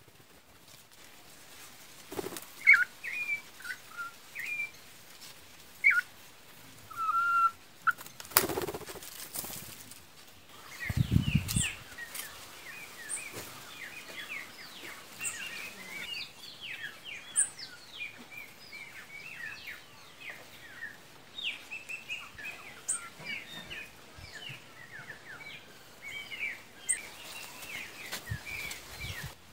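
Small birds chirping: a few separate calls in the first several seconds, then from about twelve seconds in a dense, rapid twittering of many short notes. A sharp knock comes about eight seconds in, and a few low thuds follow a couple of seconds later.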